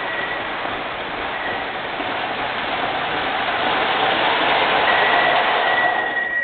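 MTH O-gauge model R40 subway train rolling along the track into the station: a steady rushing rumble of wheels and motors that grows louder as it approaches, with a thin high whine near the end.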